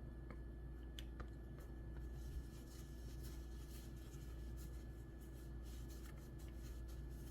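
Hands handling small objects: a few light clicks in the first two seconds, then a stretch of soft rustling and rubbing, over a steady low hum.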